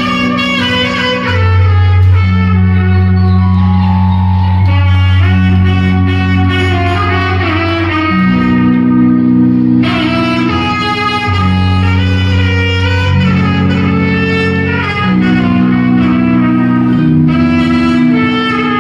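Loud instrumental music: long held bass notes under a melody line.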